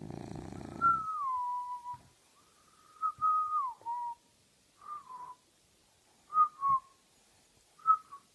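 A sleeping French bulldog gives one rough snore, then a run of five short, high whistling whines through its nose, most of them sliding down in pitch, spaced a second or two apart.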